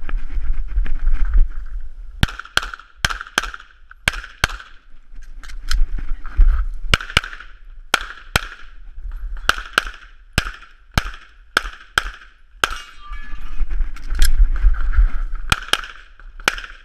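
Semi-automatic pistol fired in rapid USPSA-style strings: about two dozen sharp shots, mostly in quick pairs, with short pauses between groups. A low rumble comes in the first two seconds and again around fourteen seconds.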